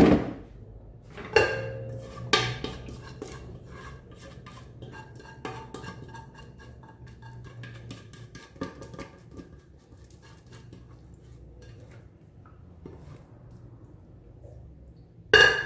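A silicone spatula scraping the inside of a metal pot and tapping against it, with a few sharp clanks: a little after the start, about two seconds in, and again near the end. Between the knocks come many small ticks, and the pot rings faintly.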